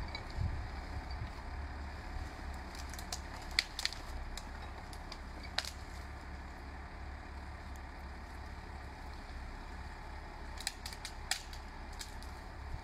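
Valtra 8550 tractor's diesel engine running steadily at low revs while the forestry crane's grapple grips and lifts a bundle of branches, which crack and snap. There is a sharp snap about a third of the way in, another about halfway, and a quick cluster of cracks near the end.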